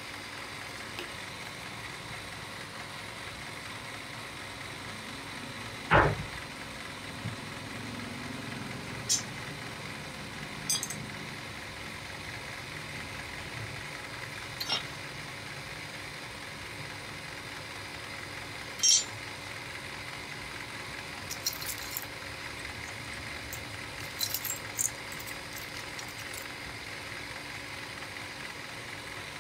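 Scattered light clinks and taps as pattern pieces are lifted out of a sand mold, with one sharper knock about six seconds in, over a steady background hum.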